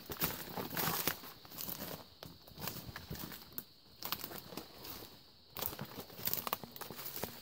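Footsteps crunching and rustling through dry leaf litter, in uneven runs of steps with a couple of short lulls between.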